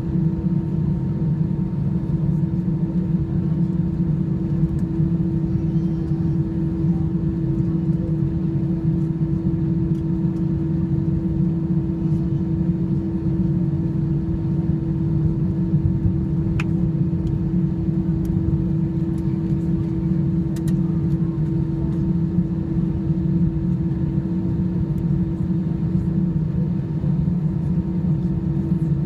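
Cabin noise of an Airbus A320-214 taxiing, heard inside the cabin by the wing: its CFM56-5B engines at idle give a steady low rumble with a constant hum.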